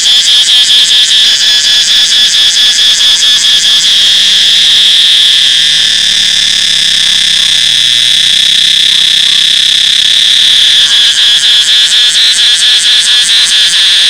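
Cicada singing very loudly: a shrill buzz that pulses about five times a second, turns into a steady drone about four seconds in, and breaks back into pulses near the end.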